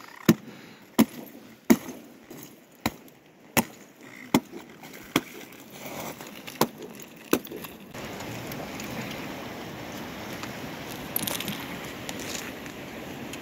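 An ice axe strikes the frozen river ice in a steady series of sharp knocks, about one every 0.7 seconds. After about eight seconds the knocks give way to the steady rush of open river water flowing past the ice edge.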